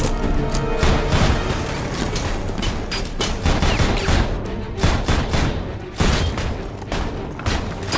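A rapid string of revolver shots mixed with heavy booms and impacts, many sharp cracks in quick succession, over loud film score music.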